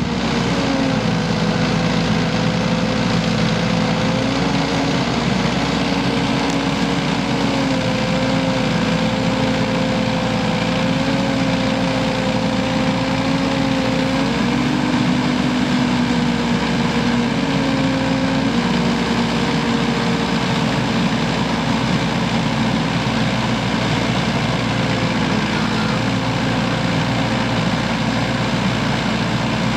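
Mecalac 12MSX wheeled excavator's diesel engine running steadily while its boom and arm are worked hydraulically. The hum shifts up and down in pitch every few seconds as the hydraulics take load.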